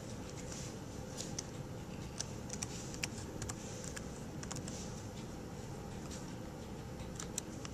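Typing on a Dell Latitude laptop keyboard: short, irregular key clicks, thinning out near the end, over a steady low hum.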